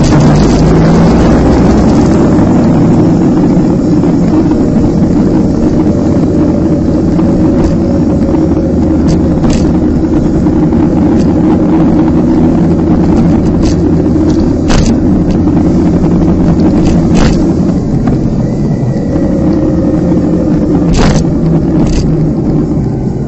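Motorcycle engine running steadily under way, recorded on the bike, with road and wind rush. A few short sharp knocks come now and then.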